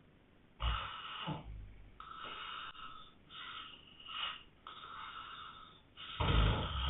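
Heavy snoring: a run of breaths roughly a second apart, the loudest one near the end.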